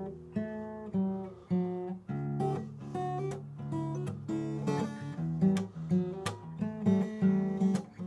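Acoustic guitar music, picked and strummed notes.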